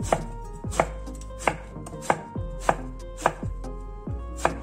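Chef's knife slicing an eggplant into rounds, each cut ending in a sharp knock of the blade on an end-grain wooden cutting board. About seven cuts come at an even pace, a little under two a second.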